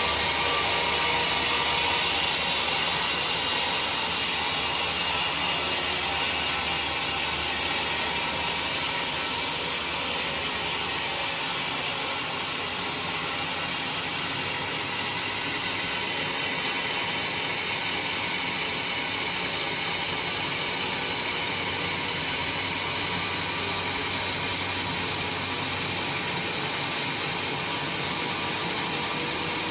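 Woodworking machinery running steadily with a continuous mechanical noise. The deeper part of the noise drops away a little about eleven seconds in.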